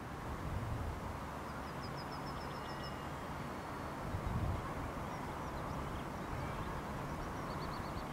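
Steady outdoor background rumble and hiss, with a small bird singing a quick trill of about ten high chirps in the first half and a shorter run of chirps near the end. A brief low rumble swells up about halfway through.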